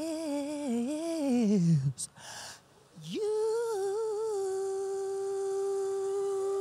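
Unaccompanied female lead vocal from an isolated live microphone feed. A wavering sung run slides down in pitch, a short breath follows about two seconds in, then one long steady held note starts about three seconds in.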